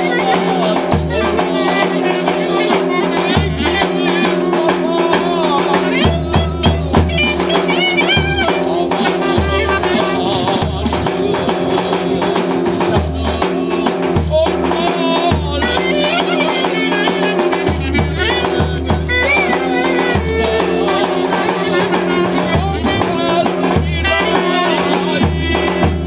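Live Thracian folk dance music. A clarinet plays a wavering melody, a davul bass drum beats out a steady deep rhythm, and a jingling tambourine keeps time, with a man singing along.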